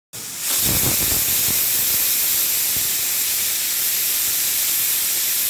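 Aluminium pressure cooker whistling: steam jets from the weight valve with a loud, steady hiss that starts suddenly. This is the sign that the cooker has reached full pressure.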